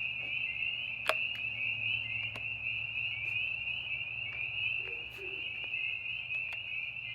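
Loud night chorus of many frogs calling at once, a continuous high-pitched din of overlapping pulsing trills, with a few faint clicks.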